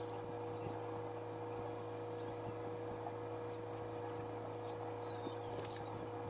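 Steady hum of an electric fan, with a few faint high chirps and a short click near the end.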